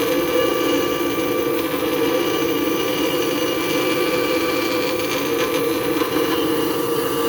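An 8-inch bench grinder running steadily while a metal edge is ground down on the wheel.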